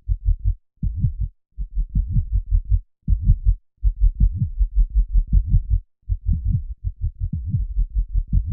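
Heartbeat soundscape: low, quick, repeated thuds of a heartbeat recording, cut into short runs with brief silent gaps between them.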